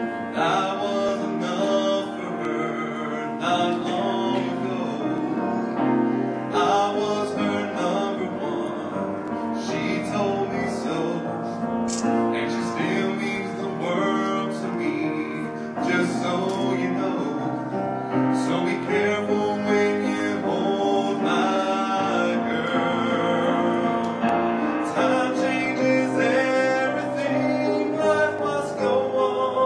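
Music: a slow song with singing over piano.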